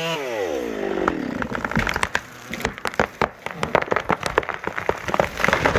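A chainsaw engine drops in pitch as it slows down, then wood cracks and splinters in a fast run of sharp snaps.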